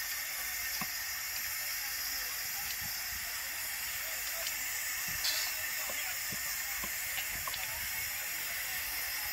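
A fire burning in a railway coach: a steady hiss with a few faint crackles scattered through it.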